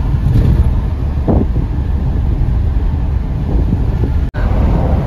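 Steady road rumble from a moving car, with wind buffeting the microphone. The sound cuts out for an instant about four seconds in.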